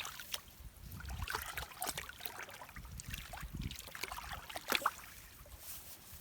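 Irregular splashing and sloshing in shallow muddy water, with many short splashes one after another.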